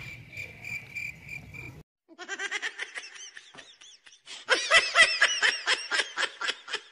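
Rapid rhythmic laughter, a laughter sound effect, starting about two seconds in and growing louder about halfway through. Before it, a faint high peeping repeats several times.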